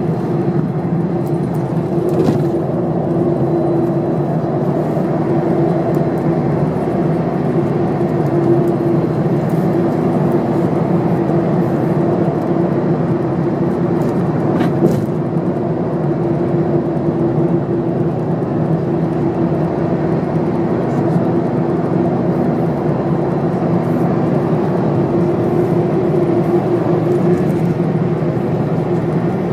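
Steady drone of a 1997 Steyr SL 12 bus with a Volvo diesel engine, running at cruising speed and heard from inside the passenger cabin together with road and tyre noise. A faint click comes about two seconds in and another near the middle.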